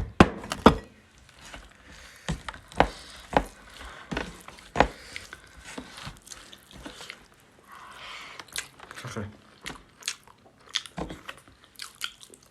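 Close-miked eating: chewing and biting a meal of pork with greens and rice, with many short sharp clicks scattered through.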